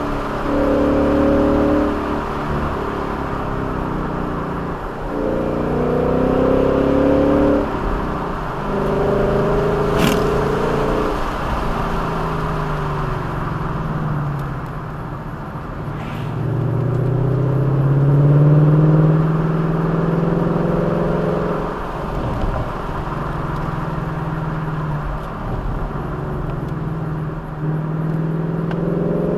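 A vehicle's engine running under changing throttle on a winding road, its pitch repeatedly climbing and then dropping back, over steady road and wind noise. Two sharp clicks, about ten and sixteen seconds in.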